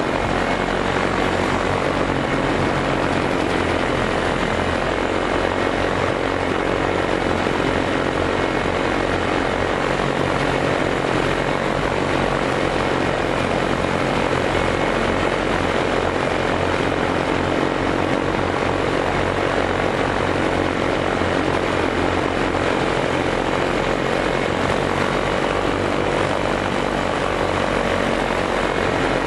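Light propeller aircraft engine droning steadily in cruise, heard from on board over a constant rush of wind.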